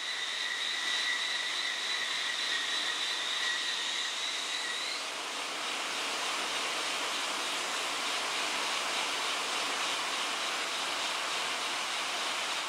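Blower-driven industrial air knife blowing a sheet of high-velocity air, a steady rushing hiss. A high whine sits over the hiss for about the first five seconds, then stops with a slight upward bend.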